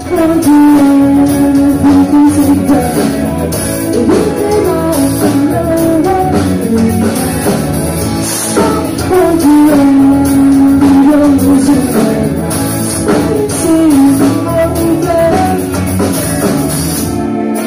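Live rock band playing a song: electric guitars, drums and a lead vocal line with long held notes.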